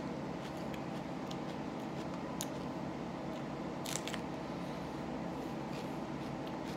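Crisp bite into a raw jalapeño pepper about four seconds in, with scattered small mouth clicks of chewing over a steady background hum.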